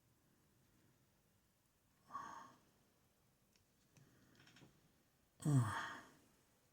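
A man sighing heavily about five and a half seconds in, the voice falling in pitch, after a shorter breathy exhale about two seconds in.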